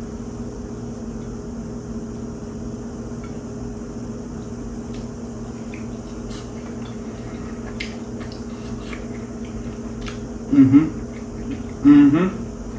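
A steady low hum with faint scattered clicks, then two short pleased "mmm" hums from a man tasting fried fish, about two and a half seconds from the end and again just before it.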